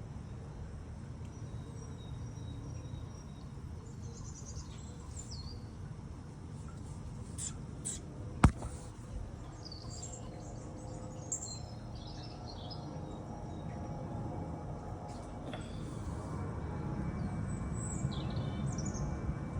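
Short, high bird chirps come at scattered moments over a steady low background hum. One sharp click sounds about eight and a half seconds in. Faint music comes in during the second half and grows toward the end.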